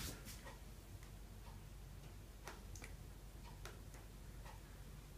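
Quiet room tone with faint, sharp ticks about twice a second, a louder click at the very start.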